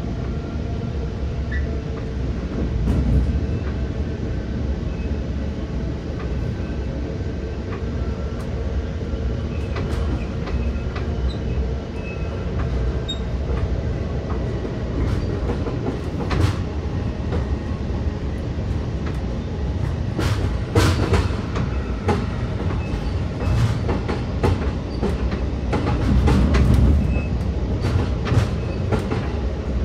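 Metra commuter train running, heard from inside a passenger coach: a steady low rumble with sharp clicks and clatter of the wheels over rail joints and switches, coming more often in the second half.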